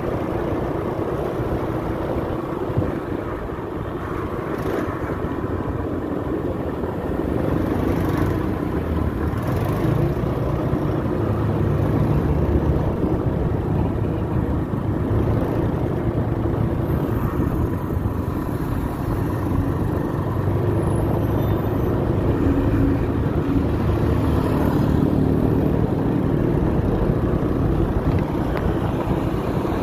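Small scooter engine running while riding along a road, with wind and road noise and other traffic around. It gets a little louder from about seven seconds in.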